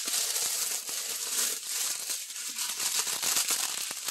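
Small clear plastic bags of round resin diamond-painting drills crinkling continuously as they are handled, with a fine rattle of the drills shifting inside.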